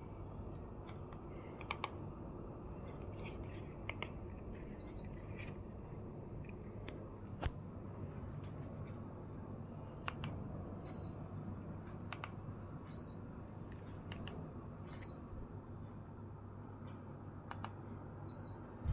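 Gree split air conditioner running with a steady low hum, with scattered sharp clicks and five short high beeps spaced a couple of seconds apart.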